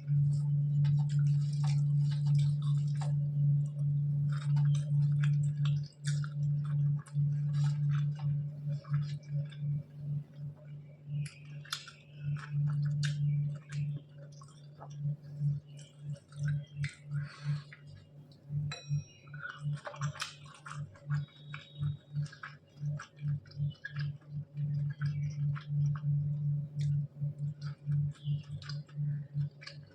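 Close-up chewing and wet mouth sounds of someone eating rice with dal and curries: irregular small clicks and smacks. Under them runs a steady low hum that is louder than the chewing.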